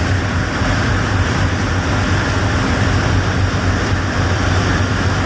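Steady low drone of a boat's engine under way, with an even rushing noise of wind and water over it.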